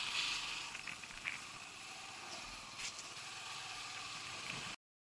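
Yamaha YBR125 motorcycle rolling slowly, heard faintly under a steady hiss, with a few light clicks; the sound cuts off near the end.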